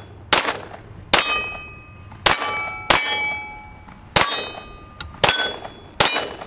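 Glock 19 Gen 4 9mm pistol fired seven times at an unhurried pace, about one shot a second. Each shot is followed by the clanging ring of a steel target being hit.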